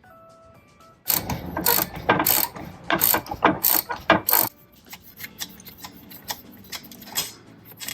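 Ratchet wrench on a 16 mm long socket clicking as the lower nut of a stabilizer link rod is undone. A run of loud, quick clicks lasts about three seconds, then lighter, sparser clicks follow.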